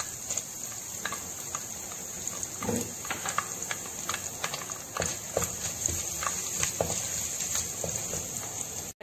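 Curry leaves and dried red chillies frying in hot sesame oil in a clay pot: a steady sizzle with scattered pops and crackles. Near the end, a wooden spatula stirs and scrapes against the clay.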